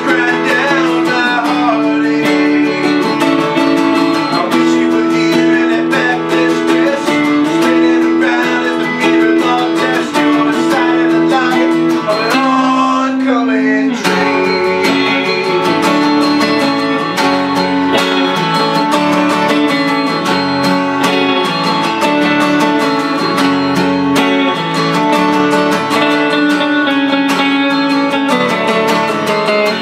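Acoustic guitar strumming together with a Telecaster-style electric guitar in an instrumental passage with no singing. About halfway through, the playing pauses on a held, bending note.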